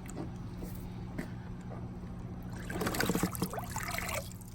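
Water splashing and sloshing, louder for a couple of seconds from about two and a half seconds in, over a steady low hum.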